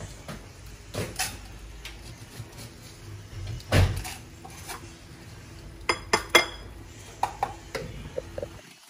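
Pots and dishes clattering: scattered metal knocks and clinks, the loudest a little before the middle and a quick run of three ringing clinks about six seconds in, over a pot of soup boiling on the stove.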